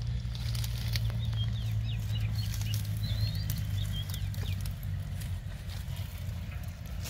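Water hyacinth clumps torn out of wet mud by hand: rustling, crackling and squelching of leaves, roots and mud. Under it runs a steady low hum, and small birds chirp now and then.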